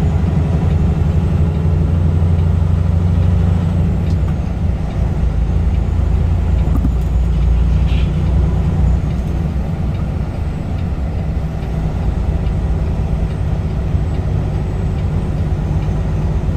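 Peterbilt 579 semi truck's diesel engine running under way, heard inside the cab: a steady low drone with road noise, easing off slightly about halfway through.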